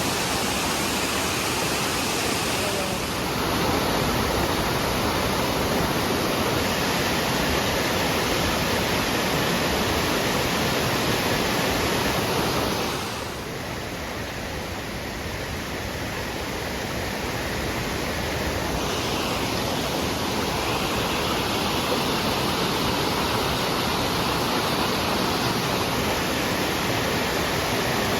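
Waterfall rushing: a steady, even wash of falling water, dipping a little in level for a few seconds about halfway through.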